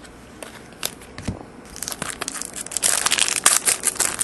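Foil trading-card pack wrapper crinkling as it is handled and opened, starting about a second and a half in and growing louder. Before that there are a few light clicks of cards being handled.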